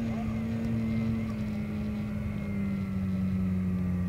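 Electric motor and propeller of an RC Pitts biplane droning in flight, one steady tone that slowly drops in pitch.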